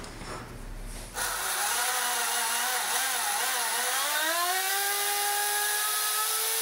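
Countertop blender switching on about a second in and running, puréeing chunks of tomato, bell pepper and cucumber in tomato juice. Its whine climbs in pitch around the middle and then holds steady as the vegetables break down into liquid.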